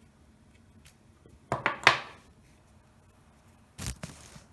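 Small metal parts being handled, making two short bursts of scraping and knocking: a pair of quick strokes about a second and a half in, the louder of the two, and a shorter one near the end.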